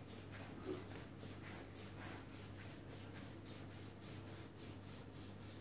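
Hands rubbing the sole and heel of a bare foot in a massage: a faint, soft swishing in quick, even strokes, about three a second.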